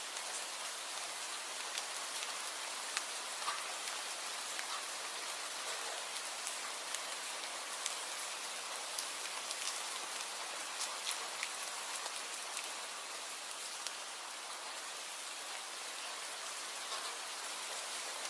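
Steady rain falling, a continuous hiss with many individual drops ticking sharply on a nearby surface.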